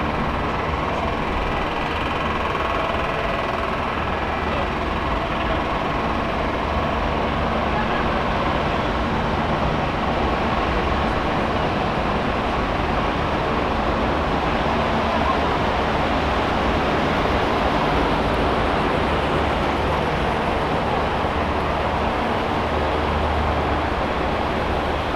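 Steady crowd ambience: many people talking indistinctly over a continuous low mechanical hum.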